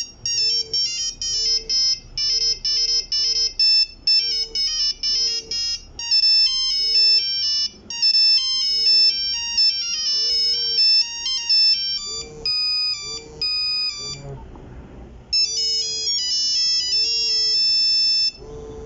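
Nokia 3310 ringtones playing: monophonic melodies of short electronic beeps, one note at a time. The tune changes a few times, with a brief pause about three-quarters of the way through before another melody starts.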